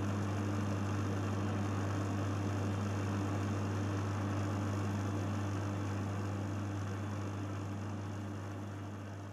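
Lombarte BDX48 belt and disc sander's 550 W DC motor running with no load: a steady hum with the whir of the sanding belt and disc, while the belt's tracking is set so it stops drifting to one side. It grows slightly quieter near the end.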